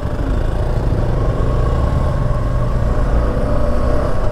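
Motorcycle riding along at steady speed, its engine running under a heavy low rumble of wind on the microphone.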